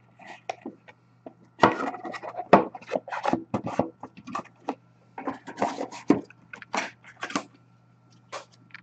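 Rustling, scraping and clicking of trading card packaging and boxes being handled, in a quick run of short bursts over a faint steady electrical hum.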